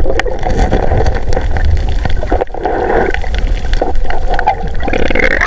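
Muffled underwater noise from a camera held below the surface: water sloshing and gurgling around it, with scattered small clicks and knocks.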